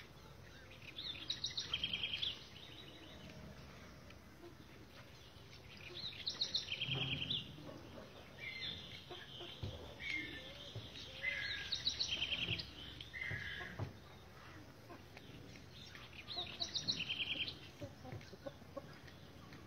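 A bird singing a short phrase of rapid high chirping notes, repeated four times at about five-second intervals, with a few scattered single chirps in between.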